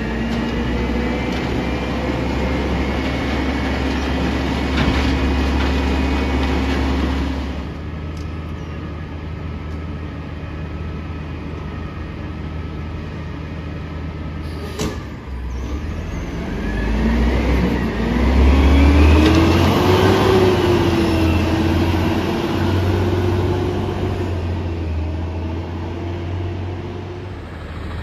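Peterbilt 320 front-loader garbage truck's diesel engine running: held at raised revs for the first seven seconds or so, dropping back to a lower, steady note, then revving up in a rising note about halfway through and staying high and loud for several seconds before easing off near the end. A single sharp click comes about halfway through.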